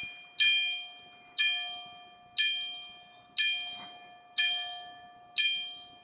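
A bell striking slowly and evenly, six strokes about a second apart, each ringing out and fading before the next, like a clock striking the hour.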